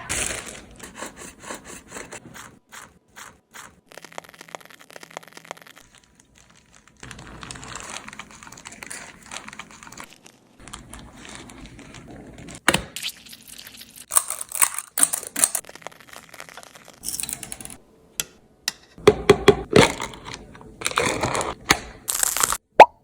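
Food preparation and bento packing handled close to the microphone: a string of light taps, clicks, scrapes and crinkles, growing busier and louder near the end.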